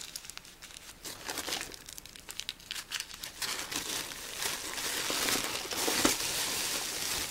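Plastic zip bags of beads crinkling and rustling as hands rummage through a box of them, an irregular crackle that grows louder and busier about halfway through.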